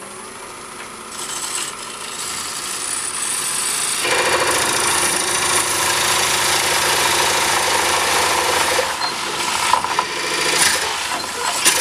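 Wood lathe spinning a bowl blank while a Oneway coring knife cuts into it, a steady scraping cut that grows louder over the first four seconds and then holds, with a few sharp clicks near the end.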